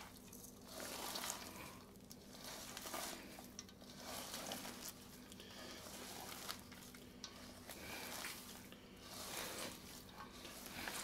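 Hands kneading and mashing ground beef with panko breadcrumbs and onions in a stainless steel bowl: faint wet squishing with crumb crackle, in strokes about once a second.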